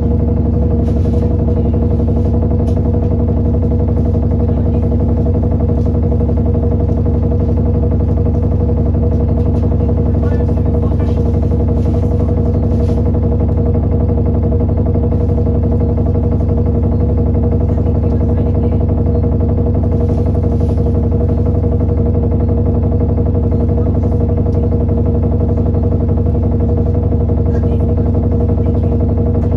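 Diesel engine of an Alexander Dennis Enviro400 Trident double-decker bus running steadily at an even speed, a low hum with a few faint clicks or rattles now and then.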